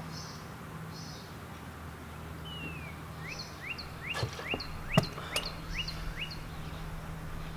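A bird singing a quick run of short rising chirps, starting about a third of the way in, over a steady low hum. A few sharp clicks come through the song, the loudest about two-thirds of the way in.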